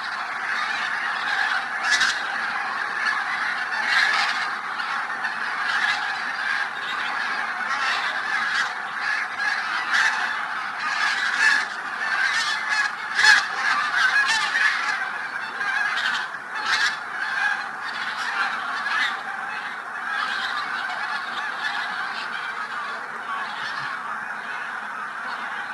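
A large flock of geese honking continuously in a dense chorus of many overlapping calls, with louder single honks standing out through the first two-thirds.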